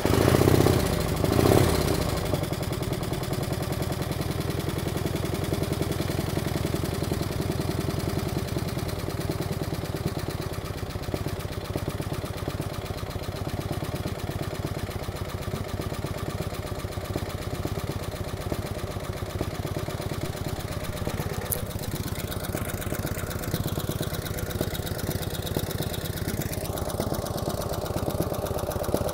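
1949 Harley-Davidson FL Panhead V-twin engine on a cold start, loud as it catches and revs in the first couple of seconds, then settling into a steady idle. A little tapping comes from the upper end of the Panhead heads.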